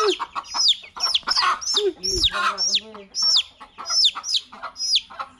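Young chick peeping loudly and repeatedly while held in a hand, about three high, falling peeps a second, the shrill calls a chick makes when handled; a few lower clucks, typical of a hen, come in around two seconds in.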